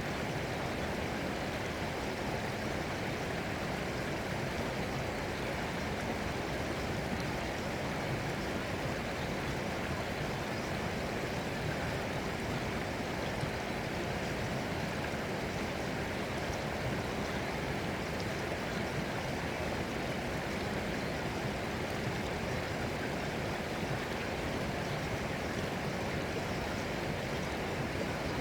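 Running water, a steady rush like a flowing stream, unbroken and even throughout.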